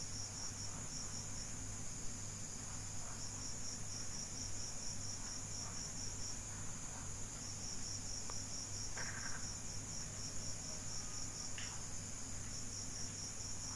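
Insects chirping in a steady high-pitched trill, with pulsed runs of chirps that break off and restart every few seconds. A low steady hum lies underneath, with a few faint taps.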